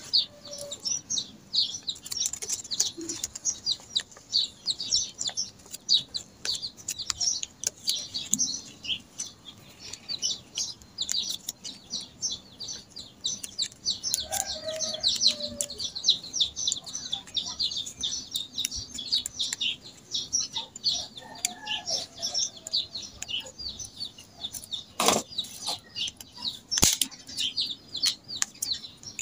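Many small birds chirping in a fast, continuous stream of short high notes. Soft clicks and crinkles of plastic gift ribbon being handled come through here and there, with a couple of louder clicks near the end.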